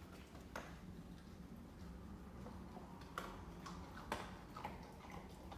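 Faint scattered clicks and light knocks, about six of them, over a low steady hum.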